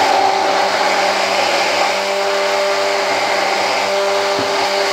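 Handheld stick blender running steadily in a jar, a loud even whir with a steady hum, as it emulsifies olive oil and lemon juice into a thickening aioli.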